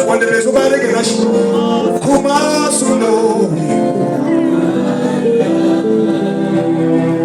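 Gospel worship music: voices singing over instrumental backing, with long held notes in the second half.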